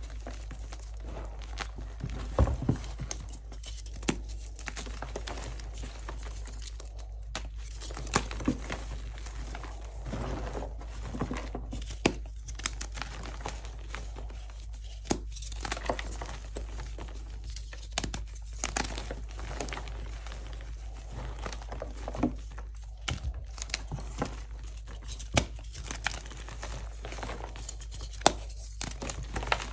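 Blocks of dyed gym chalk crumbling and crunching in bare hands: a steady crackle of breaking chalk and powder, with frequent sharp snaps as pieces break off.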